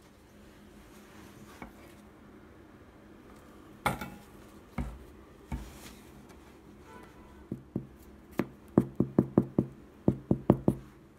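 Hand tapping on the crust of a freshly baked ciabatta loaf. First a few scattered dull knocks, then two quick runs of about five sharp taps each near the end.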